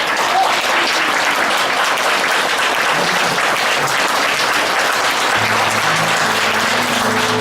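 Audience applauding. About five seconds in, instrumental music with a held low note begins under the applause.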